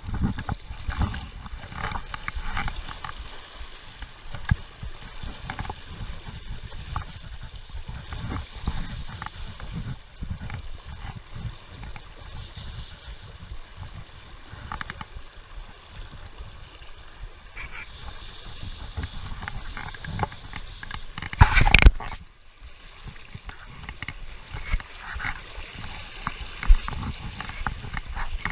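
River water sloshing and gurgling around someone wading through a deep current, with frequent low rumbling bumps. A loud knock comes about three-quarters of the way through.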